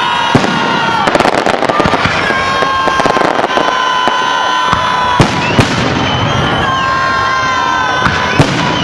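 Festive salute fireworks going off in a rapid series of bangs, with long steady whistling tones and a crowd's voices underneath. Two sharper, louder bangs come about five seconds in and near the end.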